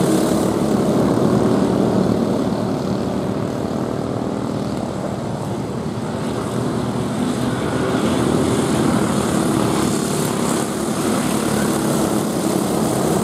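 Racing go-karts with 5 hp Briggs & Stratton flathead engines running at high revs, several engines buzzing together. The sound eases off a few seconds in and builds again near the end as the pack comes past.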